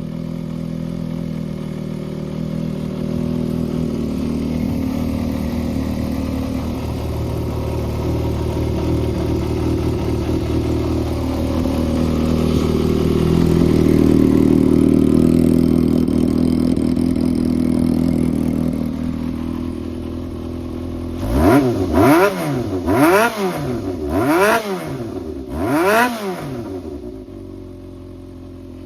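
Yamaha XJR400's air-cooled inline-four engine idling steadily, then given about four quick throttle blips that rise and fall before it settles back to idle.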